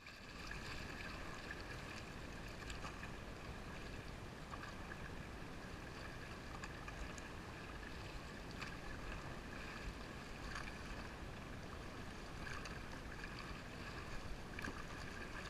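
Steady rush of river water around an inflatable raft, with occasional short splashes from paddle strokes.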